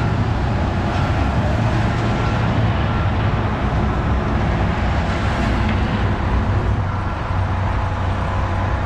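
Heavy diesel engines running steadily, a continuous low rumble of a wheel loader and a concrete mixer truck.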